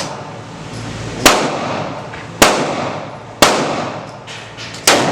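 Gunshots: four single shots fired about a second apart, each followed by a decaying ringing tail.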